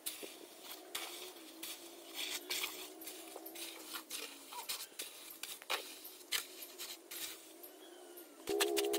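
A metal trowel scraping through and scooping damp sand-cement mix, in scattered gritty scrapes and light knocks. Music with a steady beat starts near the end.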